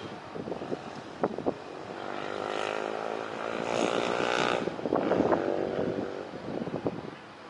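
A motorbike engine passing close by, swelling over a couple of seconds and fading away again, with wind buffeting the microphone.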